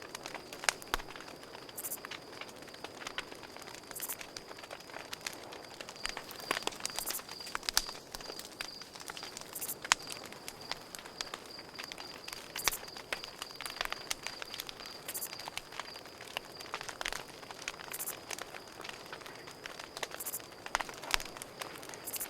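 Campfire crackling with irregular sharp pops over a steady, high-pitched cricket trill. A higher, shorter insect call repeats every two to three seconds.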